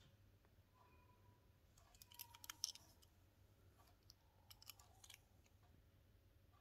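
Near silence broken by small, faint clicks: a quick run of several clicks about two seconds in, the sharpest near the middle of it, and a second, fainter run about five seconds in.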